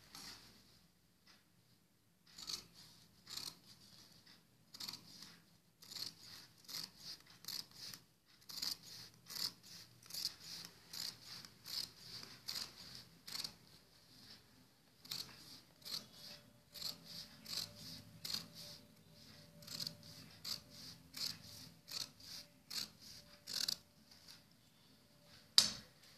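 Fabric scissors cutting through folded layers of cloth: a steady run of short snips, about two a second, with brief pauses between runs and one louder snap near the end.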